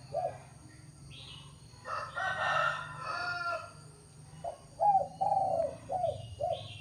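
Spotted dove cooing: the tail of one phrase right at the start and a full multi-note coo phrase in the last two seconds. Between them, about two seconds in, a rooster crows for about a second and a half.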